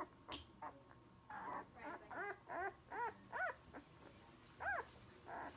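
One-week-old Labrador puppies whimpering: a quick run of four short, high squeaks, each rising then falling in pitch, about two to three and a half seconds in, and one more near the end, over soft rustling.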